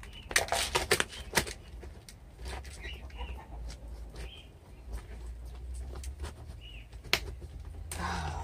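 Handling sounds from gloved hands working potting soil in a plastic pot: a few sharp knocks and clicks near the start and again near the end, with soft rustling between. Short bird chirps sound now and then in the background over a steady low hum.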